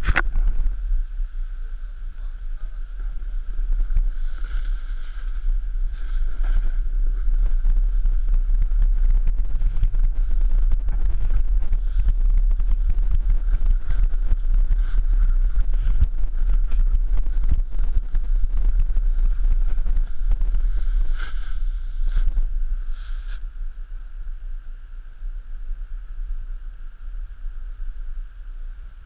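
Wind buffeting a pole-mounted action camera's microphone while a snowboard slides and scrapes through powder snow: a low rumbling noise with dense crackle. It eases off after about twenty-three seconds as the board slows.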